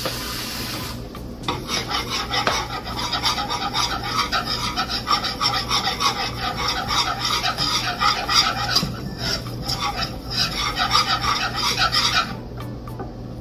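Wire whisk scraping rapidly around a metal skillet, stirring a browning flour-and-grease roux for gravy. A steady hiss comes first; the strokes start about a second in and stop shortly before the end.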